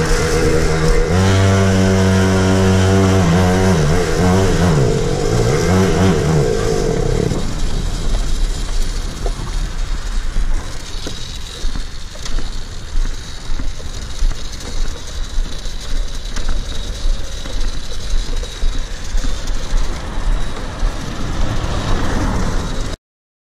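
Chinese pocket-bike minibike's small two-stroke engine running and being revved, its pitch rising and wavering, then the engine note drops out about seven seconds in. Gusty wind rush on the microphone is left as the bike rolls on.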